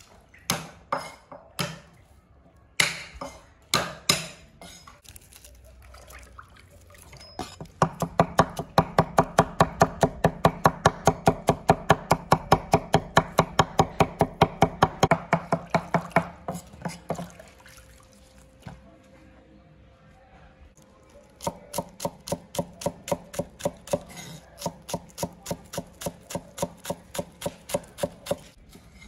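Steel cleaver chopping on a thick wooden chopping block. A few scattered knocks come first, then a fast, steady run of blows of about four a second mincing garlic. After a pause of a few seconds, a second steady run chops green onions.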